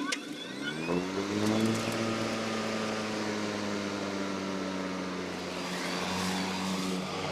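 Worx Nitro WG761E cordless lawnmower's electric motor and blade spinning up, a rising whine over the first two seconds that settles into a steady running hum.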